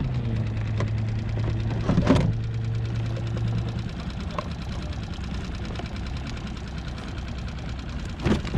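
A motor humming steadily at one low pitch, which stops about four seconds in; a sharp knock comes about two seconds in and another near the end.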